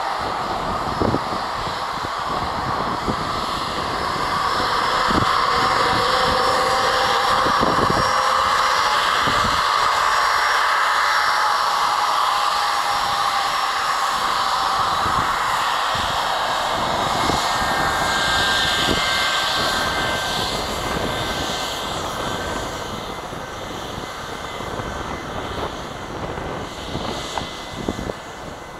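Boeing 717's two rear-mounted Rolls-Royce BR715 turbofans at high power for takeoff: a steady jet rush with a faint whine. It grows louder a few seconds in and eases off near the end. Gusty wind thumps on the microphone.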